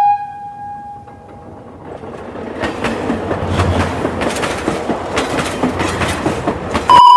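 Train running on rails, a rising rumble with the wheels clacking over rail joints. Near the end a sudden, very loud steady tone cuts in.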